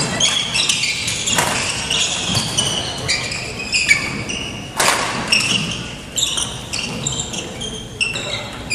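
Court shoes squeaking in short, high chirps on a gym's wooden floor during badminton play, with sharp racket strikes on the shuttlecock about a second and a half in and again about five seconds in, echoing in the large hall.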